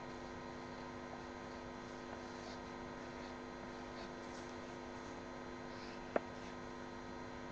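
Steady electrical hum with several fixed tones over a hiss from a webcam's microphone, with faint scratching of a pencil on paper and one sharp click about six seconds in.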